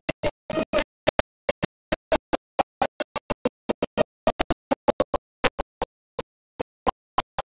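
Badly broken-up audio: the sound cuts in and out as dozens of short clipped fragments, several a second, with dead silence between them, so that no word or tune comes through.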